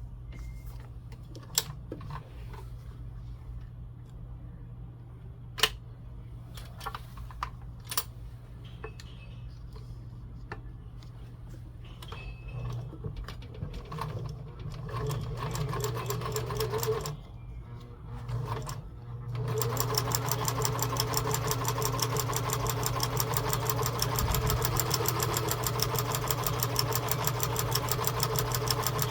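Kenmore 158.13511 sewing machine stitching through two layers of vinyl with a size 18 needle and heavy polyester thread. First come a few scattered sharp clicks, then short slow runs of stitching and a brief stop. In the last third it settles into a fast, steady run of stitches.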